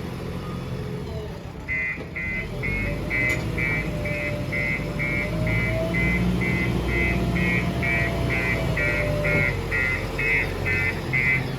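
Diesel engine of heavy construction machinery running, with a reversing alarm beeping steadily about three times a second from about two seconds in. The engine revs up a little in the middle.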